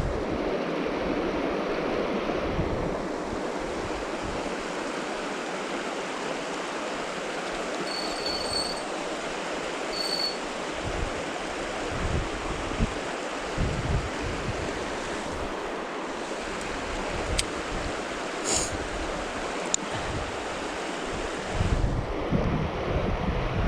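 Steady rush of river water running over shallow riffles, with wind buffeting the microphone now and then, most strongly near the end. Two short high tones sound about a third of the way through.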